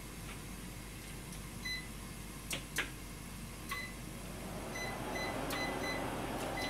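Short electronic beeps from a kitchen appliance's control panel as buttons are pressed to set a five-minute cook for the salmon: a single beep, then a quick run of about five beeps near the end, with a few light clicks between.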